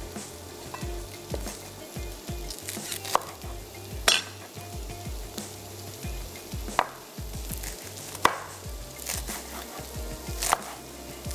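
Knife cutting spring onions on a chopping board: a string of soft thuds with a few sharp, louder knocks at irregular moments. Under it a pan sizzles steadily on the stove.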